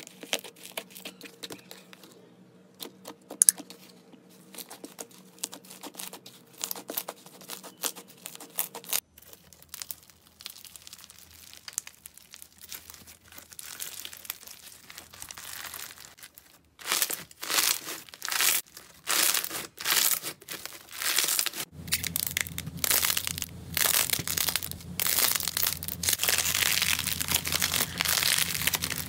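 Hands pressing, stretching and squeezing slime, giving sticky crackling and popping sounds in a run of short clips. The crackling grows louder and denser about two-thirds of the way in, as a fluffy slime is squeezed in the fist.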